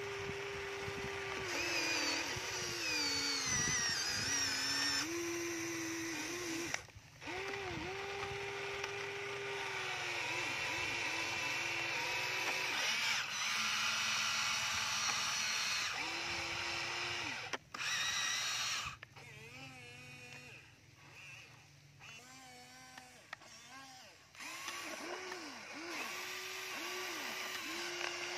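Huina radio-controlled toy excavator's electric motors whining as the boom, arm and bucket move, starting and stopping every few seconds. The pitch dips briefly now and then as a motor takes load. The whine is quieter and lower for a few seconds past the middle.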